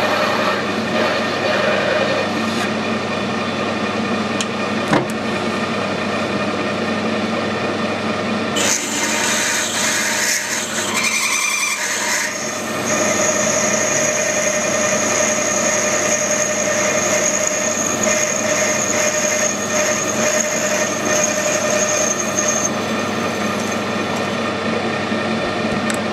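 Metal lathe running with a twist drill in the tailstock boring into a spinning one-inch brass bar. Over the lathe's steady hum, a high whine comes in about nine seconds in and stops a few seconds before the end.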